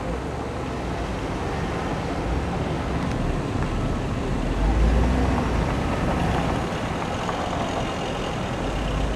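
Road noise inside a moving car: a steady rumble of tyres on the road, swelling a little about halfway through.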